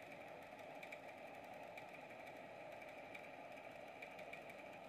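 Desktop computer power supply's cooling fan running with a faint, steady hum, a sign that the supply has switched on without a motherboard. A few faint ticks come over it.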